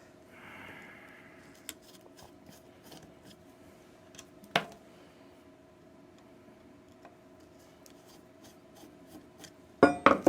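Small clicks and taps of hand tools working the side-plate screws on a Duro K-255 pump's crank housing, with a brief scrape near the start and a sharper knock about four and a half seconds in. Near the end comes a burst of loud metal clattering.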